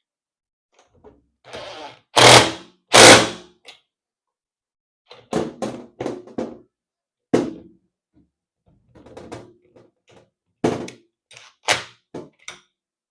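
Tools knocking and clattering against metal parts of a sausage stuffer's gear and ratchet assembly while its bolt is tightened down. Two loud bursts about two and three seconds in, then a string of shorter knocks.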